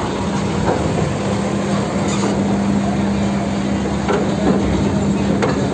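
UD Quester truck's diesel engine running with a steady hum as the truck and its loaded flatbed trailer roll slowly over a steel ramp grating, with scattered clanks and knocks.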